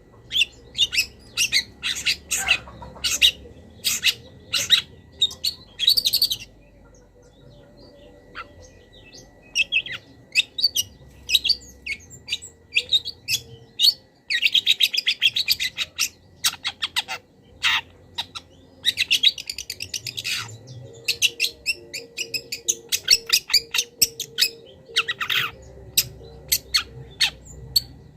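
Long-tailed shrike (cendet) singing a varied, mimicking song: quick series of sharp, high notes broken by bursts of rapid chattering, with a quiet pause of a few seconds about a quarter of the way in.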